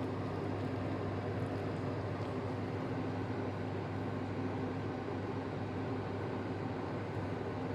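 Steady machine hum with an even hiss, unchanging in level.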